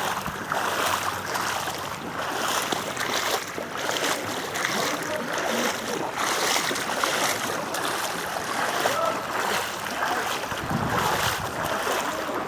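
Steady hiss of heavy rain falling and water running on a waterlogged street. A low rumble comes in near the end.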